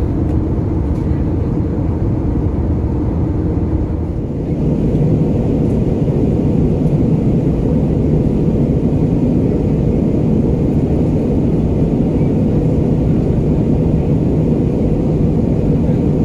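Steady cabin noise of an Airbus A320 in flight, heard inside the cabin: the low rumble of the engines and the rush of air past the fuselage. About four seconds in, the sound shifts slightly and gets a little louder.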